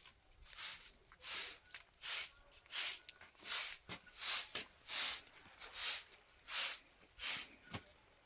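Steady rhythm of rasping, scraping strokes, roughly three every two seconds.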